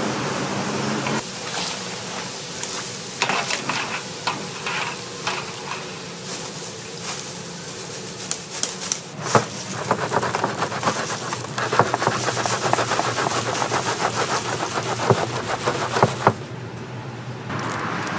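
Hot oil sizzling and crackling around small doughnut balls as they deep-fry, with a wire skimmer scraping and knocking. A sharp knock about nine seconds in comes as the fried balls are tipped from the wire basket onto a tray, followed by several seconds of rapid crackling clicks.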